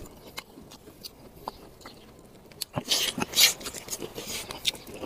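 A person eating grilled fish by hand: chewing with soft mouth clicks and lip smacks, and a run of louder smacking and sucking noises about three seconds in.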